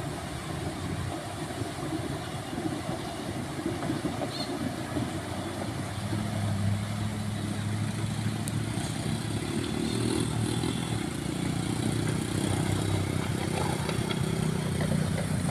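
Motorcycle engine running, getting steadily louder from about six seconds in as it comes closer.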